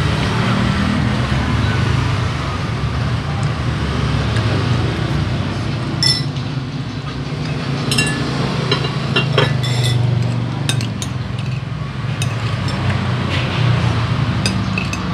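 Metal spoon and fork clinking against a ceramic plate several times during eating, over a steady low rumble of street traffic.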